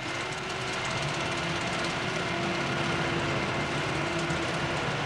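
Automated pallet-warehouse machinery running, a stacker crane and conveyors: a steady mechanical rumble with a steady whine over it that stops near the end.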